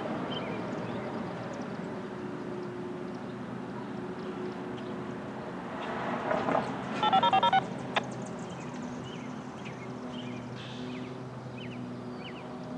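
A quick run of electronic tone beeps, stepping between several pitches, about seven seconds in; this is the loudest sound here. Under it are a faint low drone that comes and goes and scattered short chirps.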